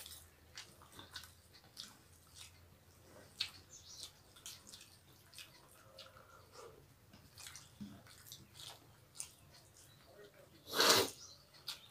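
Two people eating rice with their hands from steel plates: soft chewing and the squish of fingers mixing rice, with many small scattered clicks and taps. A short, louder breathy sound near the end.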